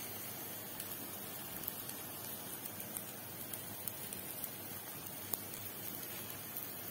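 Salça paste and flour frying in oil in a pan, a steady sizzle with many small scattered pops and crackles.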